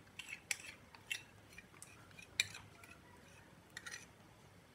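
Metal spoon clinking and scraping against a ceramic bowl as its contents are scooped into a cooking pot: a handful of faint, short clicks spread over several seconds.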